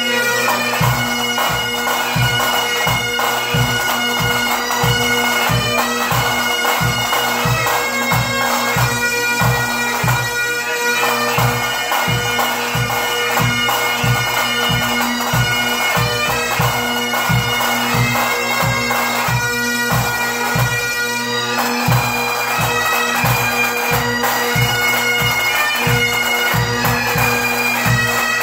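Pipe band playing: a group of Great Highland bagpipes, their steady drone under the chanter melody, with a bass drum beating about twice a second.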